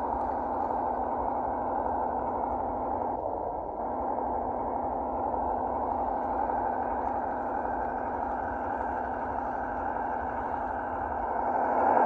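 1:12 scale RC ZIL-131 model truck running steadily, a continuous mechanical hum with a fast even pulse that grows louder near the end.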